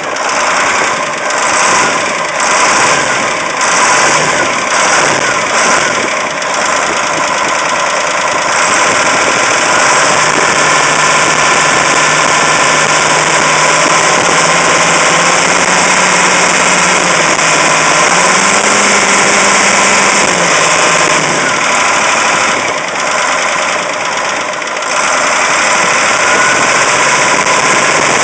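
Caterpillar 3208T turbocharged V8 diesel running with a persistent rattling knock, which the owner suspects is fuel or injector knock or a broken piston or rings after the engine was run with the injection pump too far advanced. For the first several seconds it runs with an uneven, pulsing beat. It then settles into a steadier, slightly faster run and dips briefly near the end.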